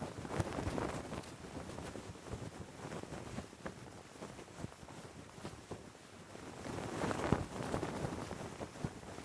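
Cloth flag flapping in the wind: a fast, irregular flutter of fabric snaps. It swells with gusts about a second in and again around seven seconds in.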